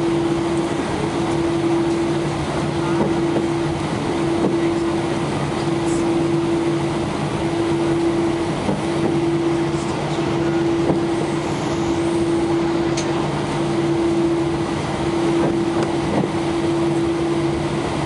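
Airbus airliner's jet engines running at idle, heard inside the cabin: a steady rushing noise with a constant droning tone, while the plane taxis toward the runway before takeoff.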